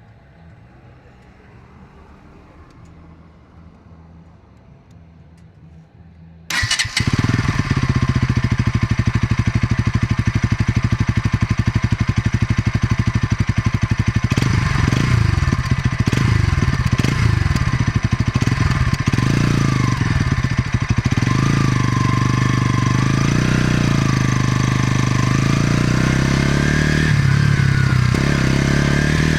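A Bajaj Pulsar NS200's single-cylinder engine starting suddenly about six seconds in, after a quiet stretch, then running with its raw exhaust note. The engine speed rises and falls for several seconds in the middle, then settles steadier near the end.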